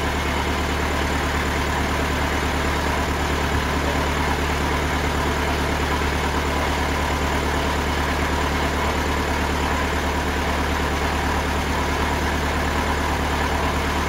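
TimberKing 2000 sawmill's engine idling steadily, with no cut being made.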